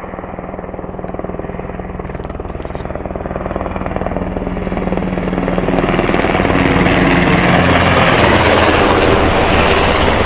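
Sikorsky HH-60 Pave Hawk military helicopter flying low overhead, its fast rotor chop and turbine noise growing steadily louder as it approaches.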